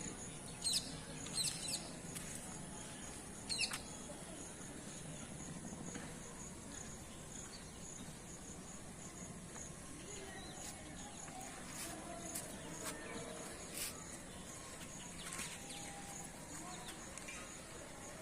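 Outdoor ambience of birds and insects: a steady, evenly pulsing high insect call throughout, with a few sharp bird chirps in the first four seconds and scattered fainter chirps later.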